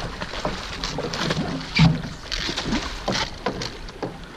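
Sea water splashing against the side of a fishing boat as a hooked fish is brought to the hull, with irregular splashes and one louder hit about two seconds in.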